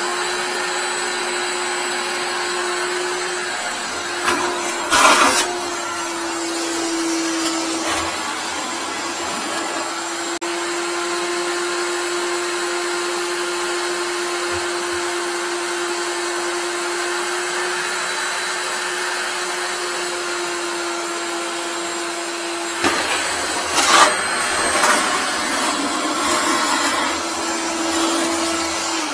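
Wet-dry vacuum motor running steadily with its hose sealed against a toilet's outlet, sucking on the clogged drain to pull up a lodged toothbrush. Two louder, rougher surges of sucked water and air come about five seconds in and again a few seconds before the end, the motor's pitch sagging a little under the load. The motor cuts off at the end.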